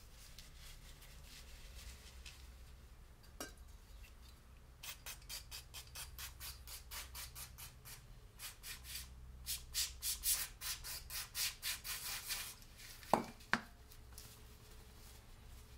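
Cloth rag rubbing over small steel bolts to wipe them clean, growing into quick scrubbing strokes about three a second from about five seconds in, then two sharp clicks near the end.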